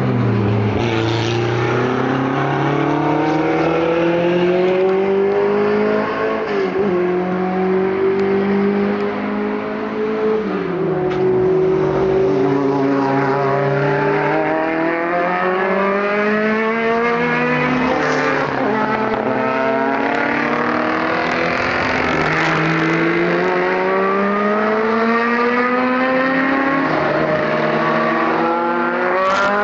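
Historic race car engines at full throttle as several cars pass, recorded on a phone. The pitch climbs through each gear and drops at every change, and more than one engine is heard at once.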